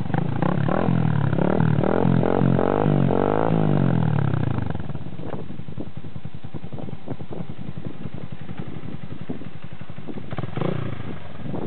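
Motorcycle engine passing close by: it grows louder and peaks about three and a half seconds in, then fades away. A brief, smaller rise in engine noise comes near the end.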